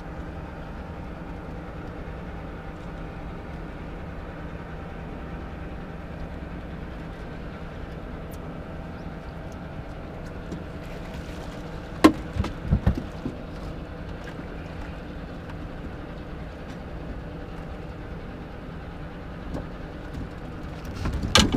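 Steady hum of a boat motor running, with a sharp knock about twelve seconds in followed by a couple of thumps.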